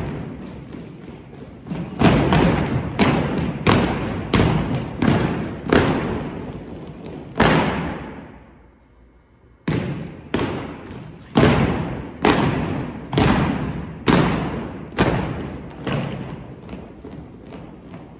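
An unarmed drill team's unison stomps and body slaps on a wooden gym floor, sharp hits about one to two a second, each echoing around the hall. The hits break off a little after eight seconds in and resume about a second and a half later.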